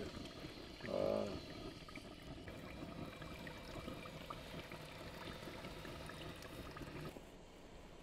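Faint steady trickle of water seeping from a sulphurous spring. A brief high call sounds about a second in, and the sound drops and thins near the end.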